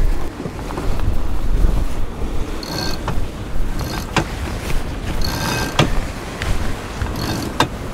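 Storm wind on the microphone and the sea rushing past a sailboat's hull, a steady heavy rumble. Three short whirring bursts come about three, five and seven seconds in, each ending in sharp clicks: a sheet being winched in to let out the headsail.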